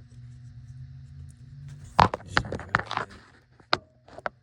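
Handling noise: a quick run of sharp clicks and knocks about two seconds in, with a few single clicks near the end, over a steady low hum.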